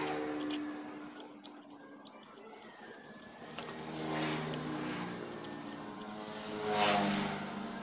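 A vehicle engine running in the background, its pitch and loudness swelling about four and seven seconds in, with a few light metallic clicks from hand work fitting the cam timing gear on a scooter's open cylinder head.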